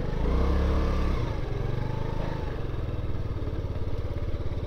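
Yamaha Gear 50cc scooter's four-stroke single-cylinder engine running under way, its pitch rising and falling over the first two seconds as the throttle is worked through a bend, then settling into a steady low putter.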